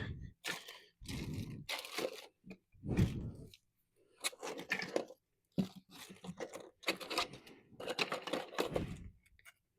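Rummaging and handling of small tools and parts: a series of irregular clattering and scraping bursts with short pauses between them.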